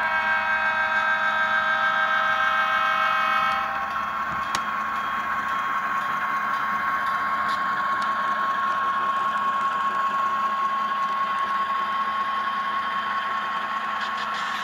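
HO-scale model diesel locomotives' Tsunami2 sound decoders: a multi-note diesel air horn sounds and cuts off about three and a half seconds in, over the running diesel engine sound. A steady high tone rings on throughout.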